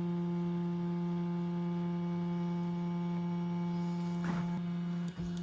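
Easythreed X1 3D printer's stepper motor giving a steady hum as the axis drives down to its home position, stopping abruptly near the end when it reaches home.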